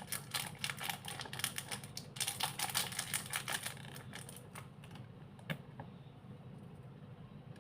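Slime being squeezed and poked, giving a dense run of rapid clicks and crackles for about four and a half seconds, then quieter with a few single clicks.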